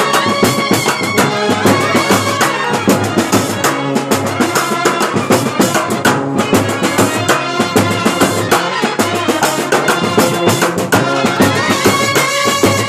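Kerala band set playing: trumpets and clarinet carry a tune over fast, dense beating on stick-played side drums, a drum kit and cymbal.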